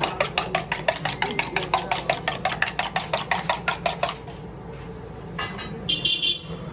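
Rapid, even clinking of a metal utensil against a metal dish, about seven strokes a second, stopping about four seconds in; quieter clatter follows.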